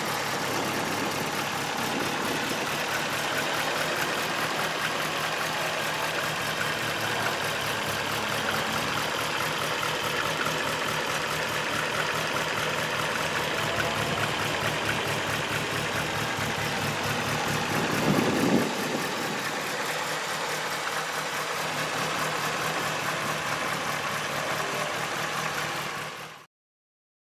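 1960 MG Twin Cam coupé's twin-overhead-cam four-cylinder engine idling steadily, with one brief louder swell about two-thirds of the way through. The sound cuts off near the end.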